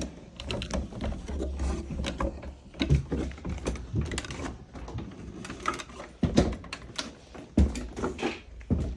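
Irregular knocks, thumps and scraping of someone moving about and climbing down while handling the phone that is recording, with a low rumble of handling noise under it.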